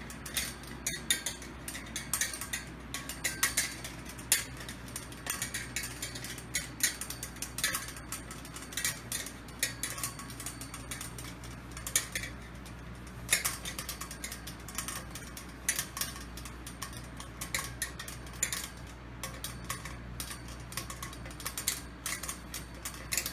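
Parts of an artificial palm tree being bent and handled: irregular clicks, taps and light rattling from the fronds and their wire branches.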